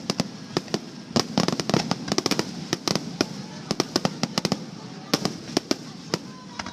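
Fireworks finale barrage: a dense, rapid run of sharp bangs and crackling reports, several a second, coming in clustered volleys.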